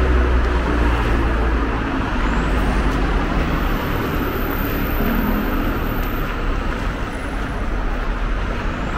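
Road traffic: a steady, fairly loud rumble of vehicle engines, with a low, even engine hum from a heavy vehicle running close by.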